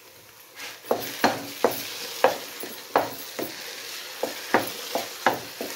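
A wooden spoon stirring and scraping thick roti halwa in a non-stick pot on the flame, the mixture sizzling in its oil. The strokes come about two a second, starting about half a second in. The halwa is nearly done and is releasing its oil.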